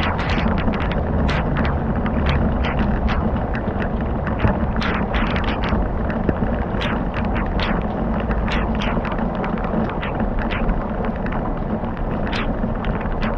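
Wood fire crackling: irregular sharp pops and snaps, several a second, over a steady low rumbling hiss.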